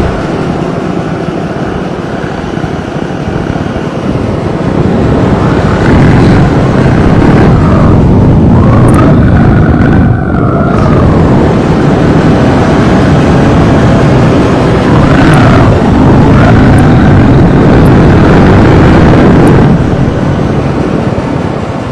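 Harsh noise music: a loud, dense wall of distorted noise from a microphone cupped at the performer's mouth and fed through heavy effects. Whining, feedback-like tones bend up and down a few times, most plainly around the middle.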